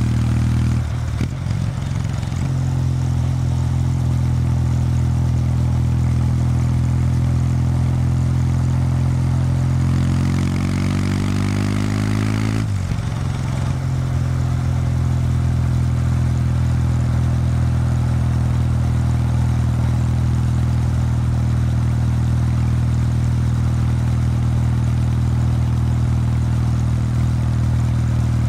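Kawasaki W800 Street's air-cooled parallel-twin engine through its stock exhaust, running steadily at a cruise. There is a brief dip about a second in. Later, the revs climb for a couple of seconds, then drop suddenly about halfway through, and steady running resumes.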